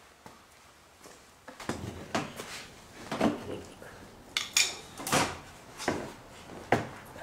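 Handling noise: a run of irregular knocks and clunks with some scraping, about eight over five seconds, as a person gets down on a concrete floor and sets down a hand tool.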